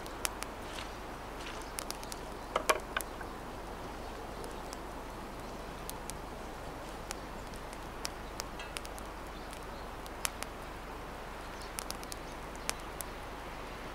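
Steady woodland background hiss with scattered small clicks and knocks from a person moving about and handling things; the loudest is a short cluster of knocks about three seconds in.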